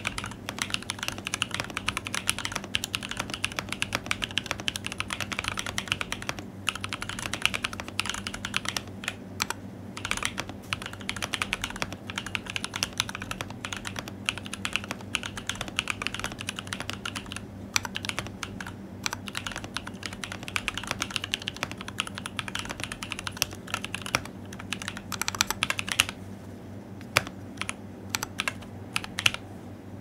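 Fast, steady typing on an Axiom Alais prototype custom mechanical keyboard with a carbon fibre plate, Evil Airy switches with 63.5 g springs and switch films, and PBT keycaps. The dense run of keystrokes thins to a few scattered presses about four seconds from the end.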